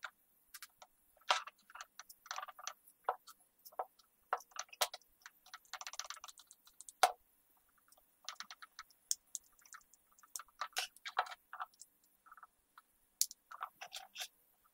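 Irregular light clicks, knocks and rattles of a Makita angle grinder's plastic body, aluminium gear housing and small steel screws being fitted together by hand. The sounds include a screwdriver working screws into the gear housing.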